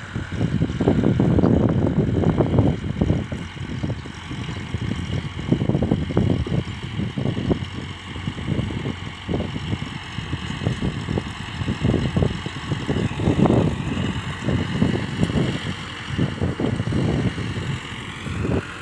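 Massey Ferguson 385 tractor's diesel engine running under load as it pulls an implement across the field, a steady low drone that swells and fades unevenly.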